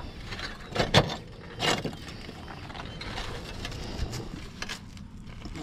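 Footsteps on concrete roof tiles: sharp clacks and knocks as the tiles shift underfoot, two loud ones about one and two seconds in, then a few lighter taps.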